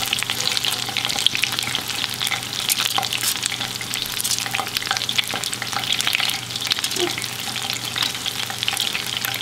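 Battered fish strips frying in hot oil in a skillet: a steady crackling sizzle made of many small, quick pops.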